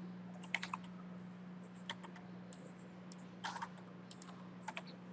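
Computer keyboard keys tapped a few times, short scattered clicks with pauses between them, over a steady low hum.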